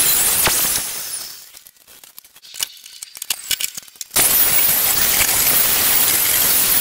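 Corded electric power tool running against the steel of an emptied propane cylinder, with a high whine over loud grinding noise. It winds down about a second in, a few sharp metallic clinks follow, and it starts up again at full speed about four seconds in.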